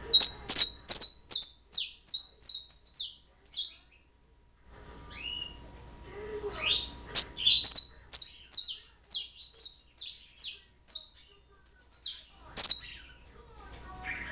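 Domestic canary chirping in its cage: runs of short, high notes, about three a second, with a pause of about a second partway through.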